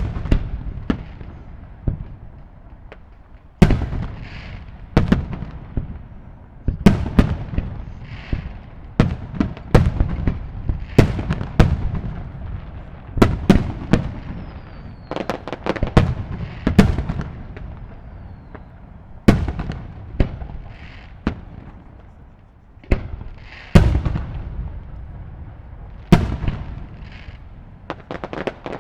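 Fireworks shells bursting one after another in an irregular volley, sharp booms with long echoing tails, some with a crackling hiss after the bang; a short lull comes about two seconds in and another near the three-quarter mark.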